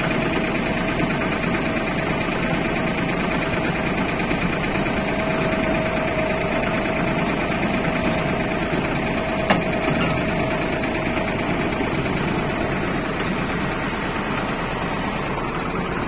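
Falcon silage baler and wrapping machine running under engine power: a steady mechanical drone with a faint steady whine, and a couple of sharp clicks about halfway through.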